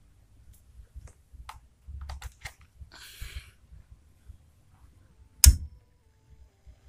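Small handling clicks and a brief rustle, then, about five and a half seconds in, one loud sharp click with a low thump as the home-built power amplifier is switched on at its rocker power switch. A faint steady tone follows.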